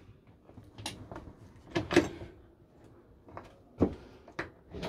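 Clicks and knocks of motorhome cupboard and fridge doors and catches being handled: a few sharp clicks, the loudest pair about two seconds in.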